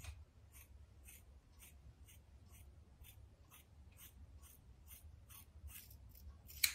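Scissors snipping through long hair in a steady run of faint cuts, about two a second, coming quicker and louder near the end.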